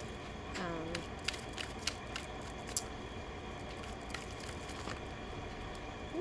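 Tarot cards being handled and shuffled: scattered light clicks and snaps of card stock, with a brief hum of voice about half a second in.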